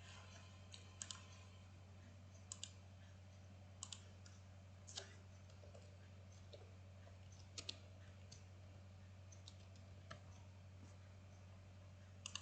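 Computer mouse clicks, sparse and sharp, several in quick pairs, every second or two over a faint steady low hum.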